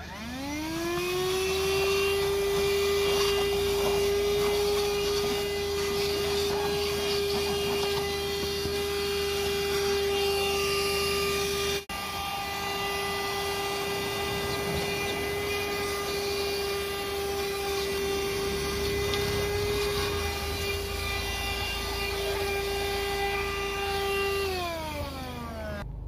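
Voroly 120 W 12 V handheld car vacuum cleaner switched on, its motor whine rising quickly to a steady high pitch while vacuuming a car seat. The run has a brief break about halfway through, and the motor winds down in pitch as it is switched off near the end.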